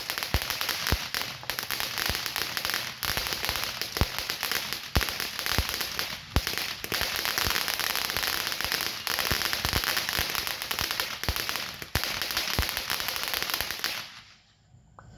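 Consumer firework going off with a continuous crackling hiss and a sharp pop every second or so. It cuts off abruptly near the end.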